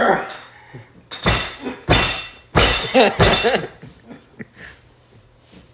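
Three loud crashing bangs about a second in, each briefly ringing, like heavy knocking.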